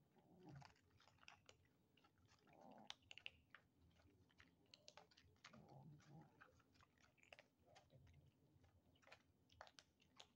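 Kittens crunching dry kibble from a tray: a faint, irregular run of small crunches and clicks.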